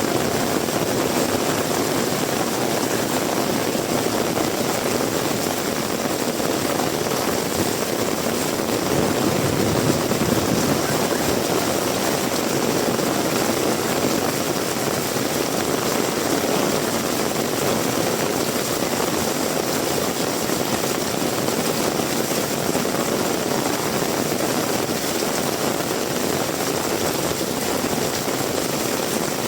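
Heavy rain and strong wind: a steady, dense roar with a slight swell about ten seconds in.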